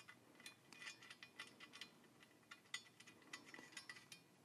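Faint, irregular metallic clicks and clinks as the crash bar's top mounting bolt is worked into the motorcycle frame by hand.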